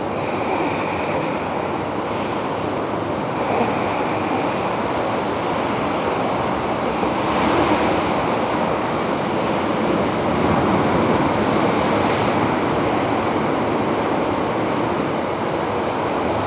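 Ocean surf washing steadily, swelling a little louder around the middle.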